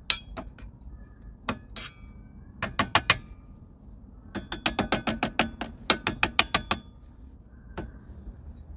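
Sharp metallic taps and clicks from work on a car's rear drum brake assembly. A few come singly, a group of about four comes near three seconds in, then a quick, even run of over a dozen at about five a second.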